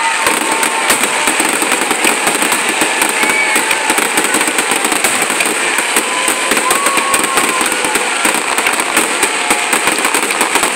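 Aerial fireworks display: a rapid, unbroken volley of bangs and crackling from many shells bursting at once.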